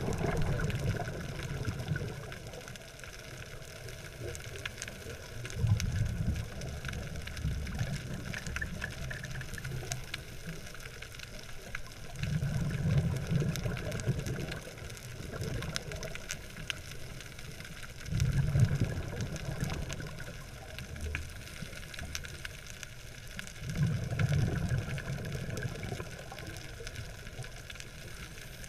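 Scuba diver's exhaled bubbles rushing from the regulator in low rumbling bursts about every five to six seconds, with a steady underwater hiss and faint crackle between breaths.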